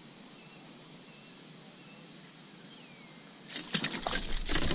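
Steady faint hiss with a few faint high chirps, then about three and a half seconds in a sudden loud run of irregular crackling, rustling and knocking close to the microphone as the angler handles a small bass and his gear.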